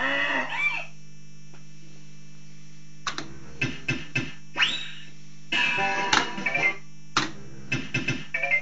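Fruit machine electronic sound effects. A jingle ends just under a second in, then only a steady low hum is left for about two seconds. After that comes a run of short beeps and tune fragments, one of them a rising sweep.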